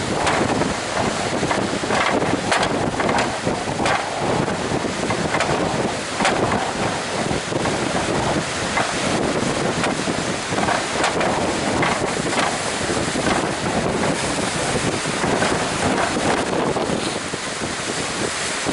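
Strong wind blowing across the microphone over the rush of breaking surf in high seas, a dense noise that swells and eases in gusts.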